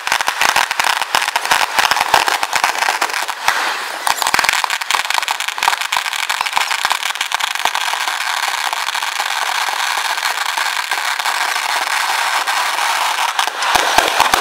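Aerial fireworks at a display's finale: dense, continuous crackling and popping of bursting shells, with a few sharper cracks near the end.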